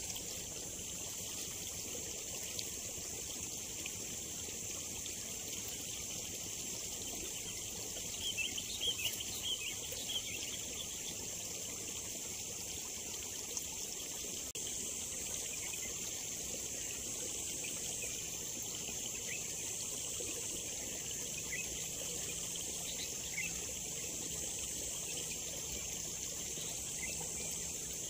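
Steady outdoor rural ambience: a constant high-pitched hiss, with a few short bird chirps about eight to ten seconds in.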